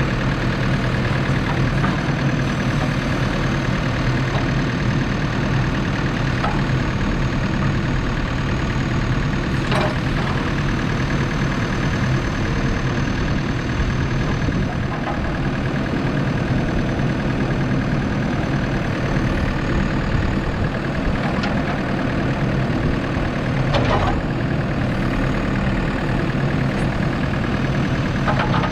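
Diesel engine of a JCB 3DX Super backhoe loader running steadily, with a thin high tone above it and a few faint clicks.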